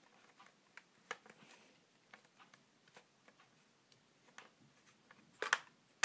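Faint scattered clicks and ticks of a small screwdriver working the screws on the underside of a Dell Latitude D610 laptop, with a louder short rattle of clicks near the end.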